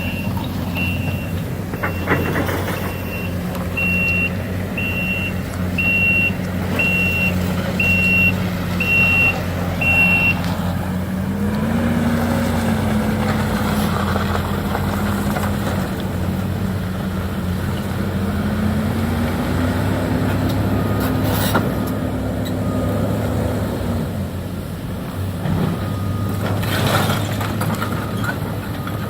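Heavy diesel demolition equipment running, its engine revving up twice, with a backup alarm beeping about once a second for the first ten seconds. A few sharp knocks of debris being struck or dropped.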